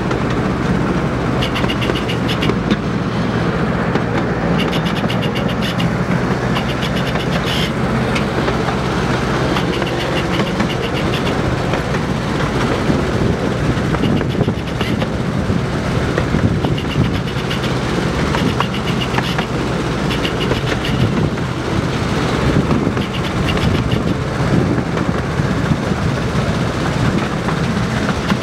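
Miniature railway train, hauled by a miniature Class 55 Deltic locomotive, running along the track: a steady rumble of wheels on rail with recurring light clicks and a low steady hum.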